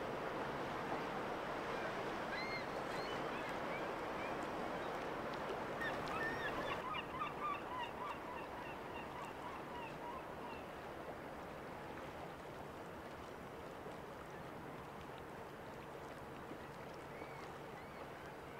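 Gulls calling in short cries, with a quick run of calls from about six to ten seconds in, over a steady rush of water and wind from a lake freighter passing close by, which slowly fades.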